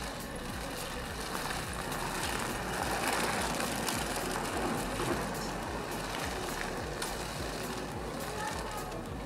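Mould King 18001 desert racer, a remote-controlled building-block car, running on asphalt: its electric drive motor and gears with the tyres rolling, growing louder as it passes close about three to five seconds in and then fading.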